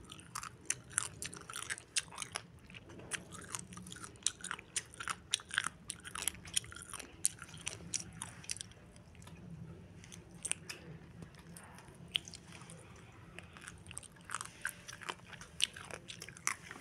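Close-up chewing of crunchy pig throat, a dense, irregular run of crunches and wet clicks that thins out for a few seconds about halfway through.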